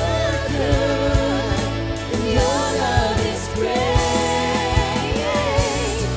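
Live worship band playing with sung vocals over a steady drum beat and bass.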